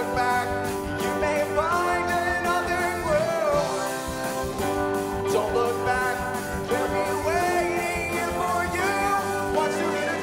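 A song sung into a microphone by a lead singer with an ensemble, over a steady beat from the backing music.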